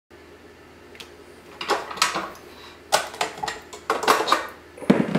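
Stainless steel bowl and flat beater of a KitchenAid Professional HD stand mixer being handled as the beater is taken off: a string of metal clinks and knocks, starting about a second in.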